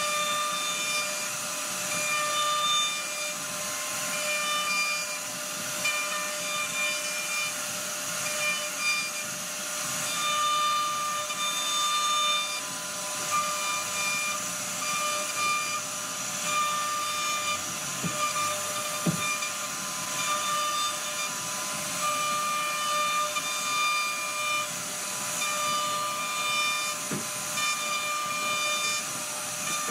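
CNC router spindle running with a steady high whine as its bit carves a relief into a wooden panel, with a hiss of cutting. The whine and hiss swell and ease as the load of the cut changes.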